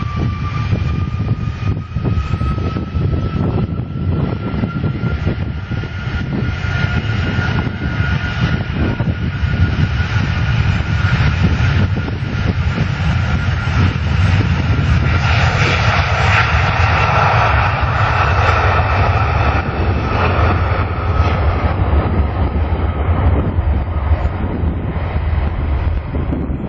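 Airbus A330's twin jet engines running loud, with a whine that rises slightly at first and then holds steady over a deep rumble. Wind buffets the microphone.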